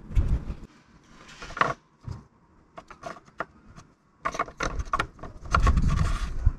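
Small plastic clicks and knocks from hands working at the oil filler on top of the engine: the rubber oil pourer is pulled off and the filler cap is put back on. The clicks are sparse at first and come thick and fast from about four seconds in, with a low rumble near the end.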